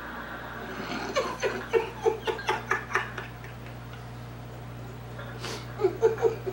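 A man laughing hard in a run of short, rapid bursts from about a second in, then a few more bursts near the end, over a steady low hum.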